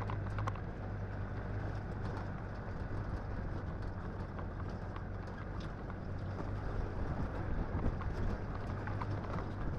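ATV engine running at a steady speed while the vehicle is ridden, a constant low drone under a rushing noise, with light rattles.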